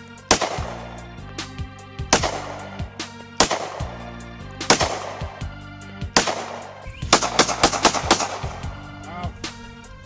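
Handgun firing single shots about every second and a half, with a quicker run of sharp hits near the end, over loud background music.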